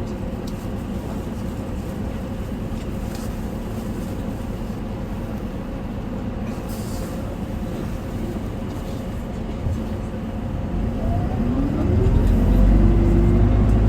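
Diesel engine of an Isuzu Erga city bus (QDG-LV290N1), heard from inside the cabin. It runs low and steady, then about eleven seconds in it revs up, rising in pitch and growing clearly louder as the bus accelerates.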